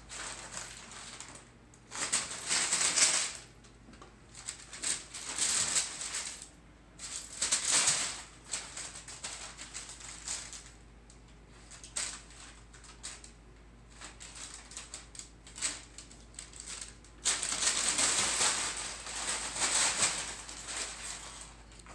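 Brown packing paper crinkling and rustling in irregular bursts as two cats wrestle and scramble in it, with the longest, loudest burst near the end.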